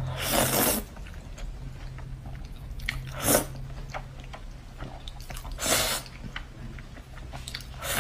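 Spicy instant noodles slurped up from chopsticks in four noisy bursts a few seconds apart, the first and third longer, with wet chewing and small mouth clicks between.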